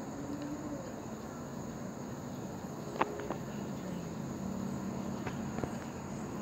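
A steady, high-pitched drone of crickets or other insects over outdoor background noise, with a few sharp clicks, the clearest about three and five seconds in.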